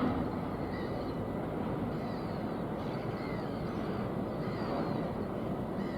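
Birds calling in short, repeated calls about once a second over a steady outdoor rumble of wind and distant traffic, with a brief knock at the very start.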